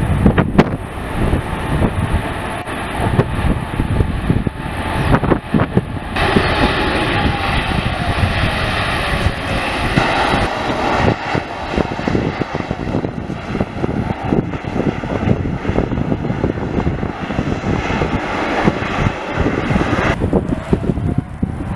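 Airbus A321neo jet engines at high thrust on a takeoff run that it rejects, a steady rumbling roar that swells as the airliner rushes past, with a falling whine as it goes by. Wind buffets the microphone throughout.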